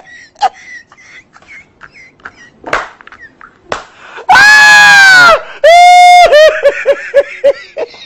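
A man's loud, shrieking laughter: a high scream of laughter about four seconds in, then a long high held note that breaks into rapid 'ha-ha-ha' pulses, about four a second. A few short sharp knocks come before it.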